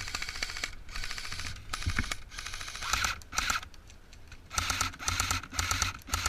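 Airsoft rifle firing a series of short rapid-fire bursts, each a fast, even clatter of shots, with brief pauses in between.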